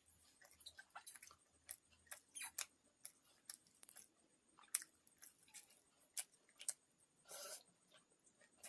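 Quiet close-up eating sounds: scattered sharp mouth clicks and chewing, with one longer noisy sound about seven and a half seconds in.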